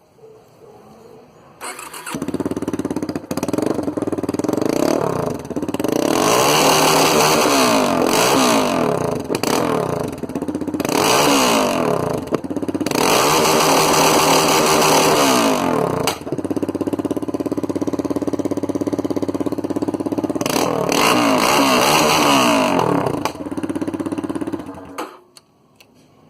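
Yamaha Fazer 250 single-cylinder four-stroke running loud through a straight pipe with no muffler. It starts up about two seconds in, is revved hard four times with idling between, and shuts off near the end.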